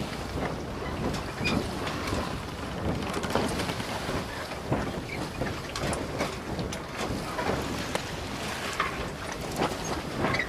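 Wind buffeting the microphone aboard a boat on the water, with scattered sharp cracks and a stronger one near the end.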